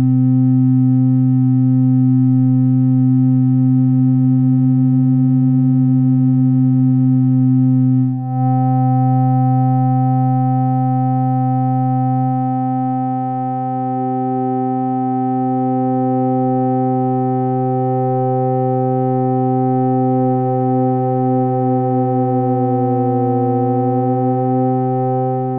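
Analog modular synthesizer oscillators holding a steady drone of several pure tones. The tones shift slightly about eight seconds in. Near the end the upper tones waver and beat against each other before the sound fades out.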